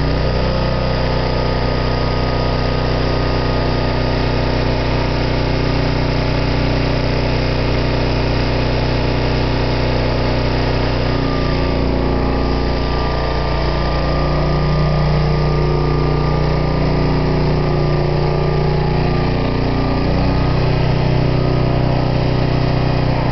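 Engine of a Lincoln Electric engine-driven portable welder running steadily. Its pitch shifts around the middle and again near the end.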